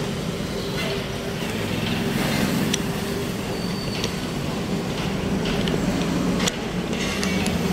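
Motor vehicle engines running steadily with road noise, a low hum underneath and a few light clicks.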